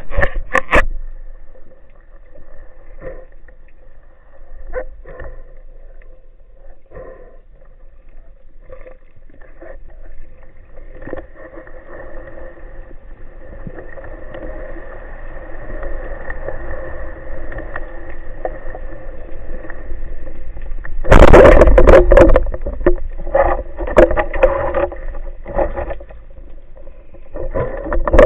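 Muffled water noise picked up by a diving camera, with a steady hum that slowly builds through the middle. Short loud rushes of noise come at the start, for a couple of seconds about three-quarters of the way through, and again at the end.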